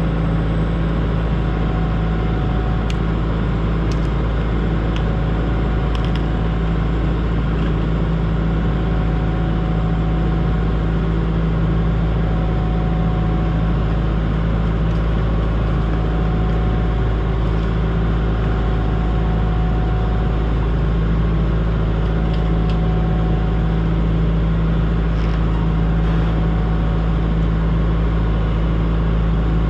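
Diesel engine of a 120-size excavator running at a steady speed, a constant drone that does not change, with a few faint clicks.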